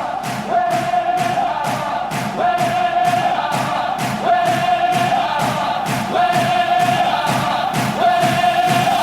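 Electronic dance music with a steady beat of about four hits a second and a held high note that repeats about every two seconds, sliding up into each one.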